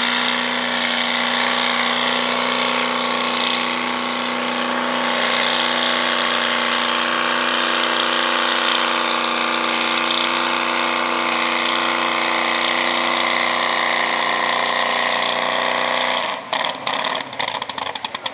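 Modified vintage pickup truck's engine held at high revs at a steady pitch while it drags the weight sled. About sixteen seconds in it drops off to a choppy, uneven idle.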